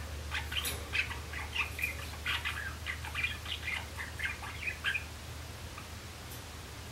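Young male Java sparrow practising its song: a rapid run of short chirping notes lasting about four seconds, stopping about five seconds in. A low steady hum runs underneath.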